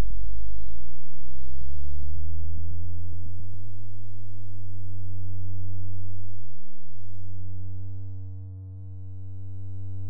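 Electronic synthesizer music: a deep, sustained drone with steady overtones. Its upper tones slide slowly upward over the first few seconds, and it fades briefly near the end before swelling again.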